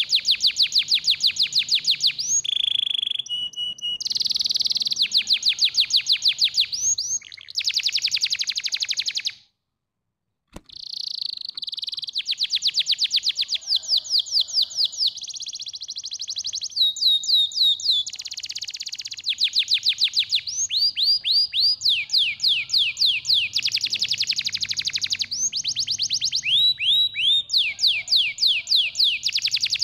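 Domestic canary singing: long runs of rapid, evenly repeated trill notes, high and bright, broken here and there by short whistled notes. The song breaks off completely for about a second a third of the way in.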